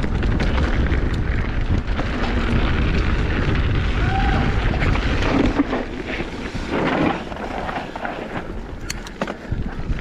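Wind buffeting the camera microphone of a mountain bike ridden fast down a trail, with tyre noise and short knocks and rattles from the bike over bumps. The rumble eases about seven seconds in.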